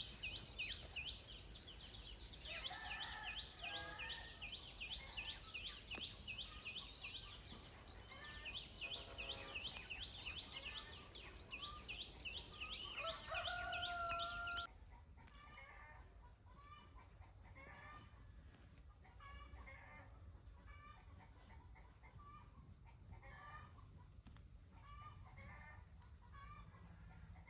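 Free-range chickens clucking, with a rooster crowing once about halfway through. A high, fast pulsing trill runs through the first half and cuts off abruptly, leaving a steady run of short clucking calls.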